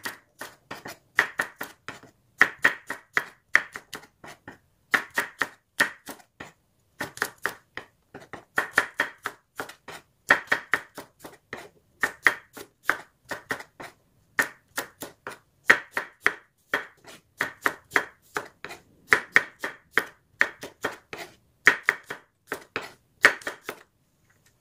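Chef's knife slicing garlic cloves on a wooden cutting board: quick knife taps on the board in short runs of several strokes, with brief pauses between runs.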